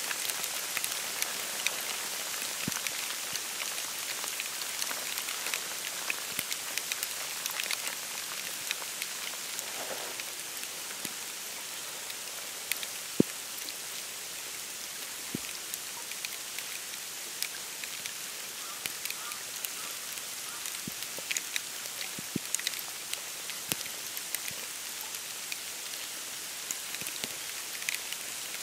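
Falling snow pattering on dry reeds and dead leaves in a wetland: a steady soft hiss with many small scattered ticks, much like light rain.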